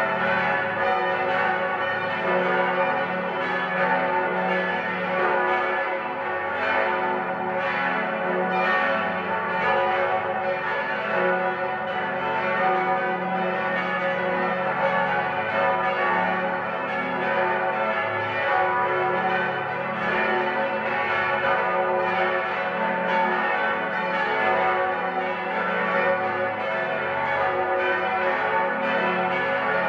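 Full peal of eight swinging church bells of the Archabbey of St. Ottilien, tuned F♯, A, C♯, E, F♯, G♯, A, B (bell 3 on B left silent), ringing together. Their strokes overlap without a break into a dense, steady wash of ringing.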